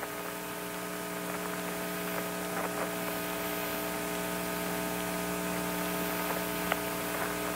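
Steady electrical hum and hiss of an open air-to-ground radio channel between transmissions, with a few faint clicks.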